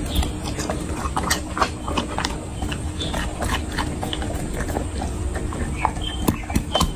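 A chocolate Labrador retriever chewing and licking raw food and cucumber from a glass dish: wet, crunchy chewing and mouth smacks with many short, sharp clicks.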